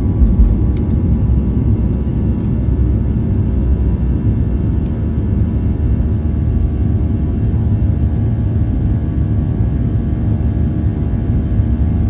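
Boeing 737-800's CFM56-7B jet engines running with a steady, loud rumble and faint steady whining tones above it, with a brief louder thump about half a second in.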